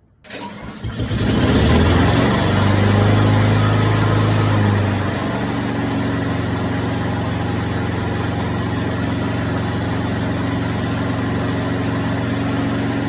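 Honda GCV160 single-cylinder four-stroke lawnmower engine starting just after the beginning, running loudest for a few seconds, then settling at about five seconds into a steady, slightly quieter run.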